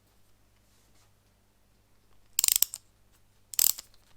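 Precision screwdriver set being handled: two short bursts of rapid clicking, the first about two and a half seconds in and the second about a second later.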